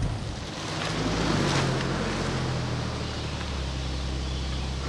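SUV engine running slowly and then idling, a steady low hum under a haze of wind and road noise.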